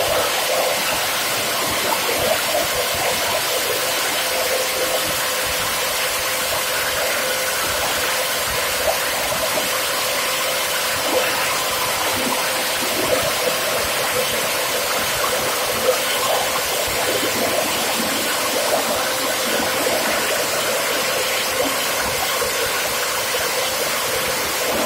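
PET bottle grinder running steadily, a constant dense noise with a steady tone, broken by scattered short cracks as plastic bottles fed into the hopper are chopped up.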